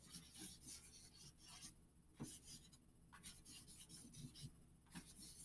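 Faint scratching of a marker tip on chart paper in short, irregular back-and-forth strokes as squiggles are drawn.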